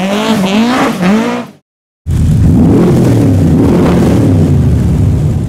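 A car engine revving up and down as it pulls away, cut off suddenly after about a second and a half. After a brief silence, a louder, steady, deep engine rumble runs to the end.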